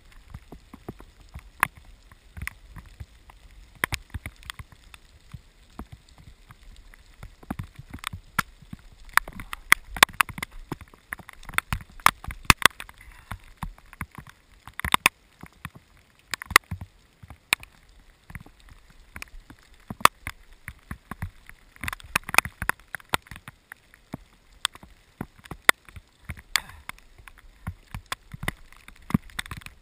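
Rain pattering on the camera's housing: many irregular sharp ticks, several a second, over a low rumble.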